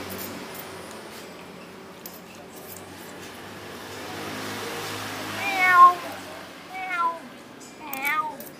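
A cat meowing three times, each a short call that bends in pitch, the first the loudest.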